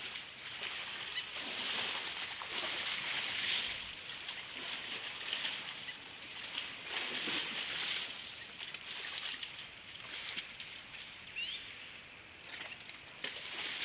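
African elephants wallowing in a mud hole: irregular wet sloshing and splashing of mud and water as they roll and shift in it, over a steady high hiss.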